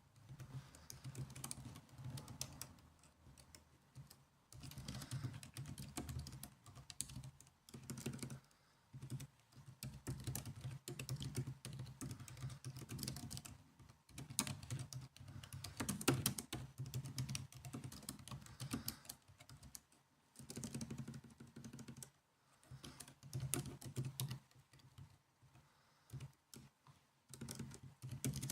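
Typing on a laptop keyboard: runs of quick key clicks in bursts broken by short pauses, over a faint low hum.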